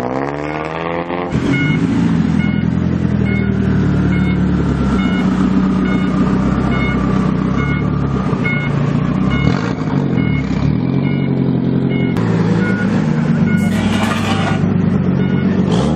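Lowered, tuned cars (a Toyota Camry, then a Nissan Silvia S14 and a Nissan Skyline R33) pulling away one after another. Their engines rev up in the first moments and then run steadily under load, with a brief burst of louder revving near the end.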